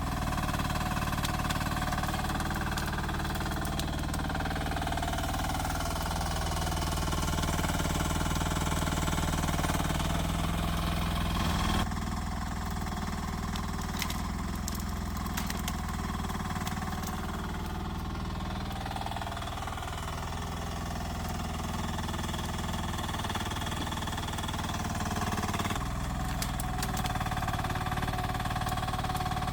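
Rippa R10 mini excavator's small engine running steadily as the machine works, the sound shifting abruptly about twelve seconds in and again near the end.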